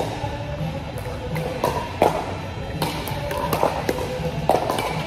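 Sharp pops of pickleball paddles striking a plastic ball, several over a few seconds, over background music with a steady beat.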